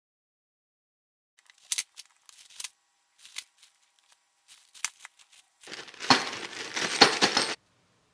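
Workshop handling noises from brake caliper work: scattered short clicks and rustles, then about two seconds of dense rustling and scrunching near the end that cuts off suddenly.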